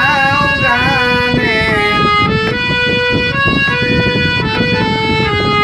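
Bengali Baul folk music: a harmonium plays held notes that step from pitch to pitch over a steady beat of hand drums. A wavering singing voice is heard for the first two seconds.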